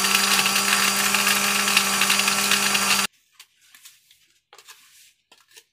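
Electric blender running at full speed, grinding Oreo cookie crackers into crumbs: a loud, steady motor hum over a rushing grinding noise that cuts off suddenly about three seconds in. A few faint taps follow.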